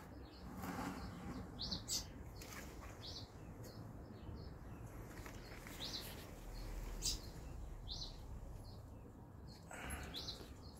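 A bird calling in the background: a short, high chirp repeated every second or two, over faint outdoor background noise.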